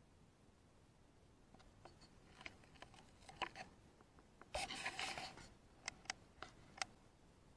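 Faint rustling and crackling of dry vegetation close to the microphone. A denser burst of rustling comes about halfway, and a few sharp clicks follow near the end.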